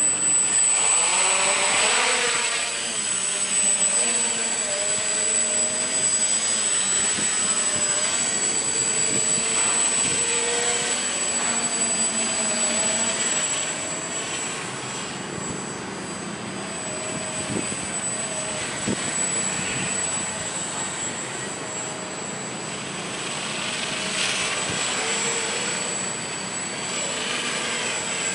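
Radio-controlled tricopter's electric motors and propellers whining in flight, the pitch wavering up and down as the throttle changes. Loudest in the first half and fainter later as it flies farther off, with a thin steady high whistle alongside.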